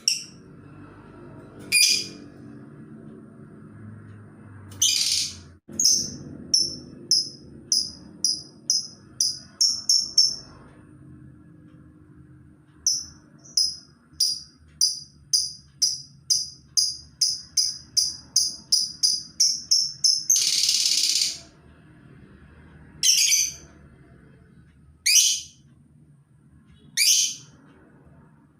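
A labet bird calling. It gives two runs of short, high notes that speed up as they go, then a harsh burst about 21 seconds in, then single downward-sweeping calls spaced about two seconds apart.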